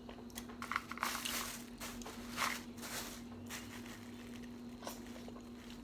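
Faint, irregular crackles and rustles of shellfish shells being handled and broken while eating a seafood boil by hand, over a steady low hum.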